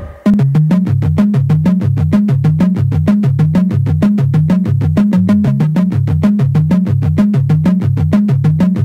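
Electronic background music: a synthesizer with a stepping bass line over a fast, steady pulse, cutting in abruptly just after a falling sweep ends.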